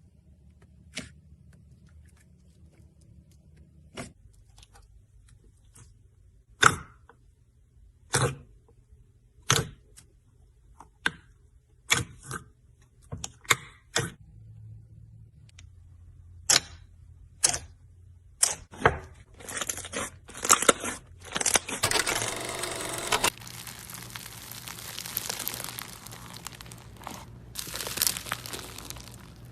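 Slime being squeezed and poked: sharp, irregular pops and clicks for about twenty seconds, then a continuous crackling through the last several seconds.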